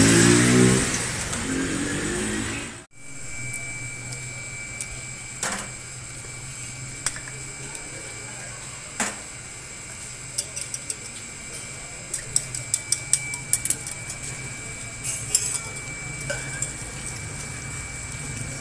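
A motor vehicle is loud at the start, then the sound cuts off abruptly. After that there is a steady low hum, with scattered sharp clicks and taps of metal utensils and crockery, coming in quick clusters in the second half.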